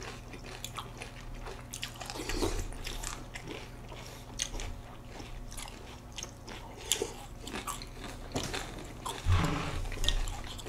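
Chewing and crunching mouthfuls of Special K Original cereal flakes in milk, picked up close to the mouth: a steady run of small, crisp crunches.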